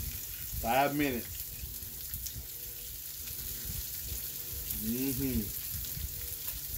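Salmon fillets sizzling in melted garlic butter on an indoor electric grill, a steady frying hiss.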